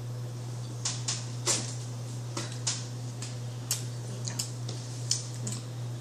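Small irregular clicks and smacks from eating off spoons, with spoons against teeth and mouths chewing, over a steady low hum.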